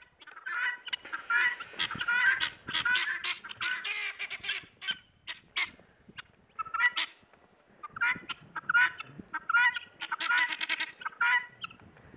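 Loud bird calls, harsh and repeated in dense bouts, with a lull of about two seconds midway before the calling starts again.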